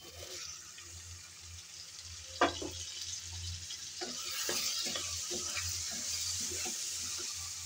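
Mutton liver pieces sizzling in spiced oil in a pan as a wooden spatula stirs them, with repeated scrapes and knocks of the spatula against the pan. A single louder knock comes about two and a half seconds in. The liver is being fried down in its masala (bhuna), nearly done.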